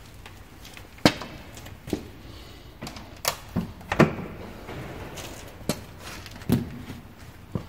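Scattered light knocks and clicks of handling around the motorcycle, about seven short ones spread over several seconds, with a low steady room background.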